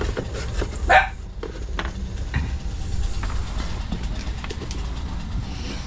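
Clicks, knocks and scrapes of a plastic beaker and cardboard being handled to trap a large insect, over a steady low rumble, with one louder short burst about a second in.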